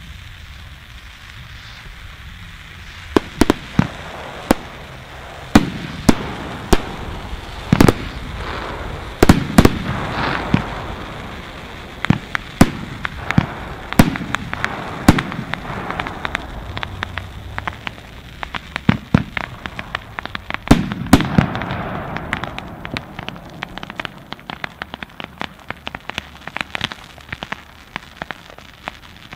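Ground-launched fireworks going off: sharp, loud bangs that start about three seconds in and come at irregular intervals, sometimes several close together, over a crackling hiss of burning effects. In the last few seconds the bangs give way to smaller, quicker pops.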